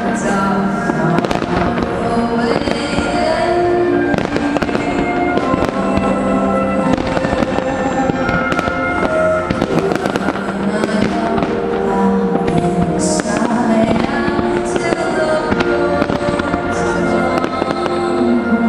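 Fireworks display: a dense run of shells bursting in quick succession, with music playing along with the bangs throughout.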